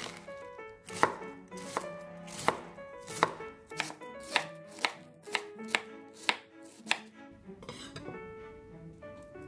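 Chef's knife shredding cabbage on a wooden cutting board: about a dozen sharp chops, one roughly every second at first and then a little faster, stopping about seven seconds in.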